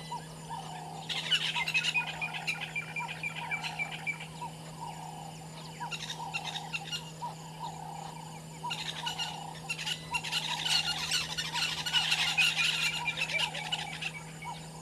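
High-pitched chirping and squealing calls in two bouts: a short one a second or so in, and a longer one from about nine seconds in. Beneath them are a softer, lower call that repeats about once or twice a second and a steady low hum.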